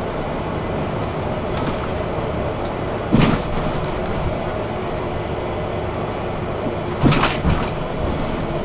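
Bus in motion, a steady rumble, with two short loud clunks about four seconds apart.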